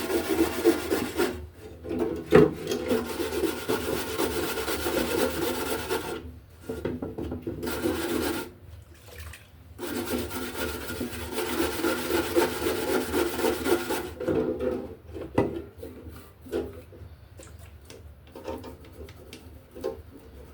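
Abrasive scrubbing against the metal of a paint spray gun during cleaning, in three long runs with short pauses, then scattered clicks and light taps near the end.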